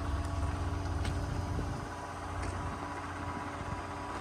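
An engine running steadily out of sight, a low rumble with a thin steady hum over it; the rumble drops off a little under two seconds in.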